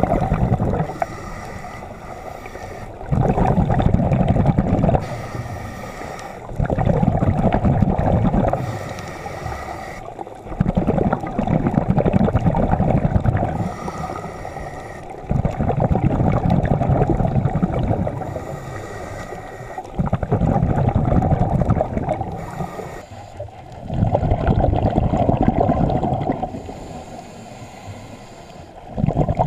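Scuba regulator breathing underwater: a hiss on each inhale, then a rush of bubbling exhaled air, repeating about every four seconds.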